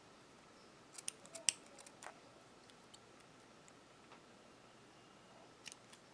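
Small embroidery scissors snipping off the excess satin ribbon: a few faint clicks and snips about a second in, then a couple more near the end.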